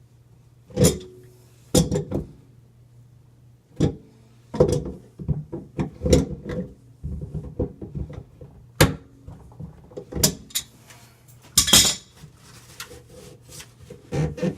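Irregular knocks, clicks and clatter of hands and tools working on sink drain fittings, with a brief rustling hiss about twelve seconds in.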